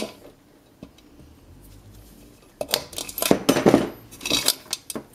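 Wire cutters snipping the last wire of a motorcycle ignition switch, with sharp metallic clicks and clinks of the parts being handled. A single click at the start, then a run of clicks and rattles from about two and a half seconds in.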